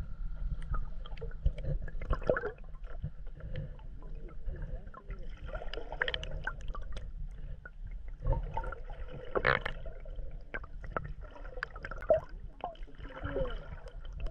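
Lake water heard through a submerged camera: muffled gurgling and bubbling over a steady low rumble, with scattered small clicks.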